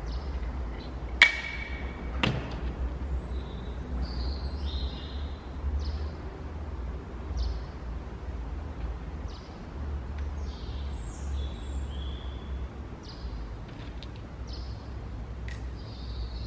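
A sharp metallic click with a brief ring about a second in, then a softer knock a second later, as the pneumatic air rifle on its beanbag is handled. Small birds chirp on and off throughout over a low rumble.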